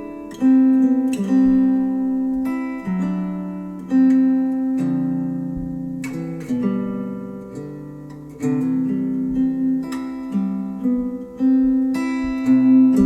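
Instrumental music led by plucked acoustic guitar, with chords struck about once a second and left to ring, played back through Focal Chora 806 bookshelf speakers.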